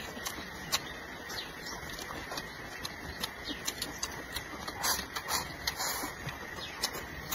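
Close-up eating sounds of a person chewing and slurping food, with scattered light clicks of chopsticks and a metal spoon against porcelain. About five seconds in there is a denser, noisier stretch as food is shovelled from the bowl into the mouth with chopsticks.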